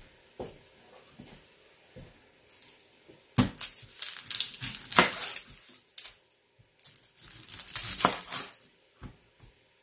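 Knife cutting through a whole yellow onion on a plastic cutting board: a few light knocks, then two longer stretches of crackling as the blade goes through the dry papery skin and the ends come off.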